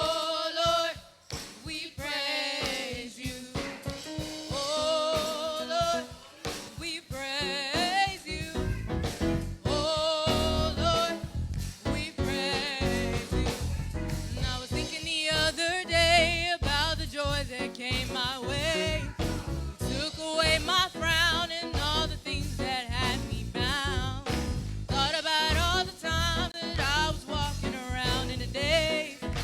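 Live gospel singing by a small vocal group over a steady beat. A full band with heavy bass comes in about eight seconds in.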